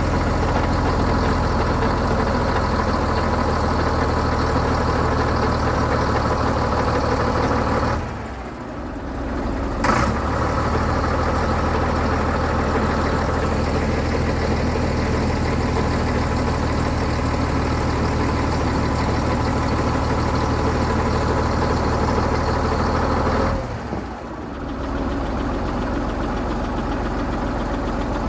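Scania P 93HL truck's diesel engine running steadily while it drives the loader crane's hydraulics. The sound drops away briefly twice, about eight seconds in and again about five seconds from the end, and there is a sharp knock as it comes back the first time.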